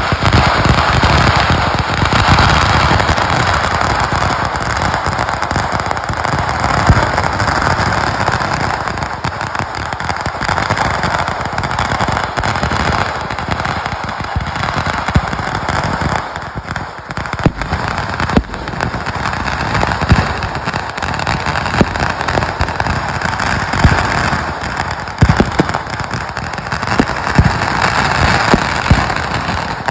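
Fireworks going off: a steady, dense crackling with many sharp bangs of firecrackers and bursting shells scattered through it.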